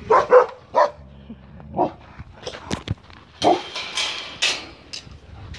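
A dog barking, several short barks in quick succession, with a few more scattered later and a stretch of rough noise around the middle.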